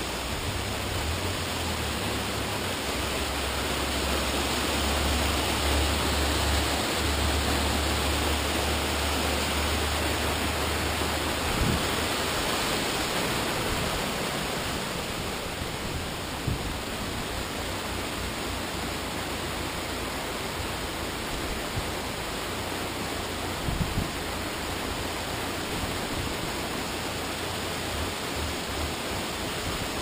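Small waterfall splashing down a rock face, a steady rush of falling water. A low rumble sits under it for the first ten seconds or so, and a few brief knocks come through, one about halfway and another later on.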